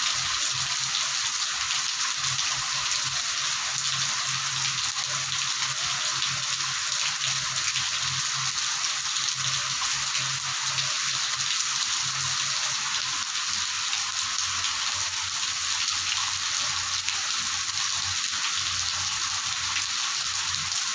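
Torrential monsoon rain pouring down onto brick paving and waterlogged ground: a dense, steady hiss that never lets up.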